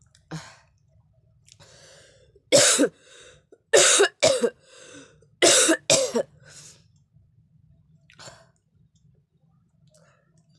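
A person coughing hard: five loud coughs in about three and a half seconds, the last four in two quick pairs, with breathy gasps between them. The fit then dies down to faint breaths.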